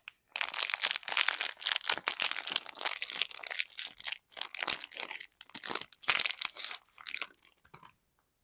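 A soap bar's wrapper being handled, torn open and crinkled, with dense irregular crackling that thins to a few soft rustles about seven seconds in and stops near the end.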